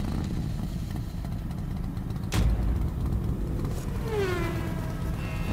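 Engine sound effect for a logo intro: a steady low engine rumble, with a sharp hit about two and a half seconds in, a falling whine about four seconds in, and another hit at the end.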